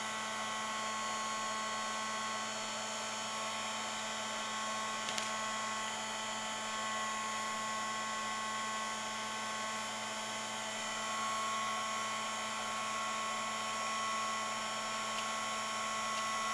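Electric craft heat tool running steadily, a fan-motor whine over an airy hiss, as it heats cardstock petals so they curl without creasing.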